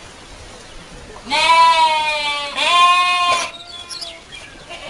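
Goat kid bleating: two long bleats in quick succession, starting about a second in.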